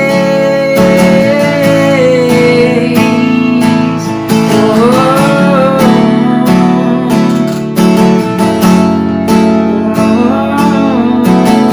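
Worship music: acoustic guitar strumming chords, with a held melody line that wavers above it.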